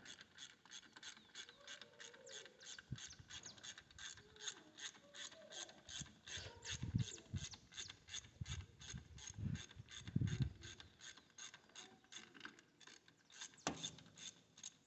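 Hand ratchet wrench clicking in a steady train, about three or four clicks a second, as a bolt on a tractor's diesel cylinder head is turned, with a few dull knocks in between.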